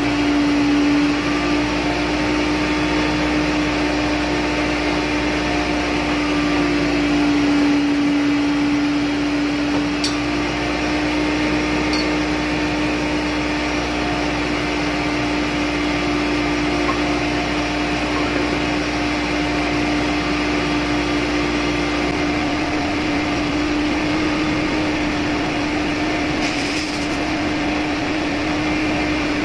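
Steady machinery noise of a ship's engine room: a constant hum with a lower rumble that thins out about three-quarters of the way through, a few faint clicks, and a brief hiss near the end.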